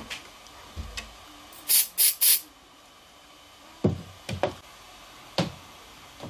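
Three quick hisses from a handheld spray can fired at a thin wooden-stick model frame, the loudest sounds here, followed in the second half by several light knocks and clicks as the sticks are handled.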